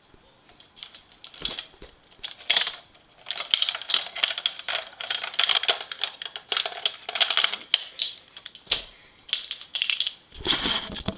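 Red plastic toy dart blaster being handled close up, a quick run of small plastic clicks and rattles in several spells, densest in the middle.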